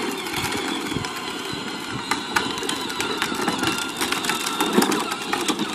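Child's battery-powered ride-on toy Jeep driving over rough asphalt: a steady rolling hiss with many small clicks from its hard plastic wheels.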